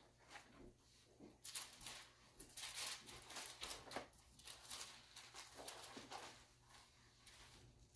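Faint rustling of thin Bible pages being leafed through, a run of soft brushing sounds mostly between about one and a half and six seconds in, over a low steady room hum.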